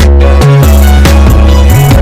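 Loud electronic music with heavy bass, in a dubstep style.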